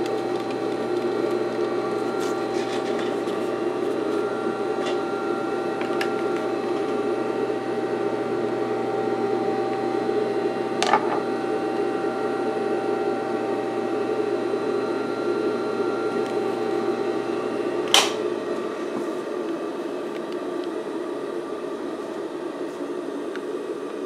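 Steady electric hum of an industrial sewing machine's motor running without sewing, with two sharp clicks about eleven and eighteen seconds in. The low part of the hum drops out shortly after the second click.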